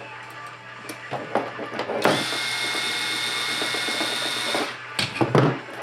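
Power drill used as a screwdriver, running with a steady whine for about two and a half seconds while backing out a screw during disassembly. Small clicks of parts and tools being handled come before and after it.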